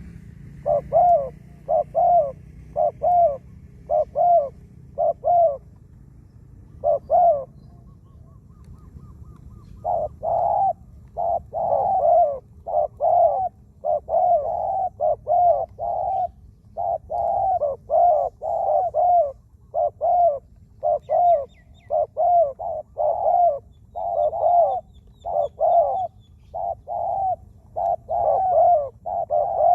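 Spotted doves cooing: short low coo notes repeated in quick runs, with a brief pause and then denser, overlapping cooing from about ten seconds in. Faint high chirps from another small bird sound a little past the middle.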